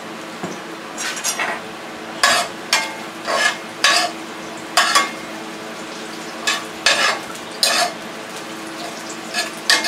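A utensil scraping and stirring sautéed onions in a metal frying pan: about a dozen short, irregular scrapes against the pan over a low, steady sizzle of frying.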